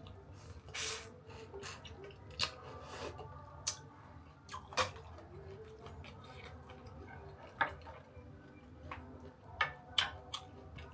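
A person eating a spicy Thai seafood salad with thin rice noodles: wet chewing and squelching, with scattered short sharp clicks and a few brief louder crunches.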